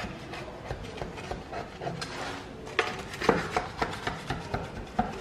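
A metal baking tin rubbing and scraping on a wooden chopping board, then a quick run of knocks and clicks about halfway through as the cake is worked out of the tin.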